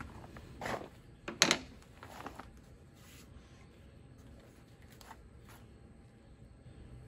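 Pressure-treated lumber being handled: a few short knocks and scrapes of wood on wood, the loudest about a second and a half in, then two lighter ones a little after five seconds.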